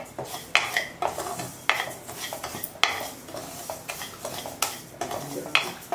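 Wooden spatula stirring and scraping dry rava around a metal kadai as it roasts: a rustle of grains with repeated sharp scrapes against the pan, at an uneven pace of roughly one or two a second.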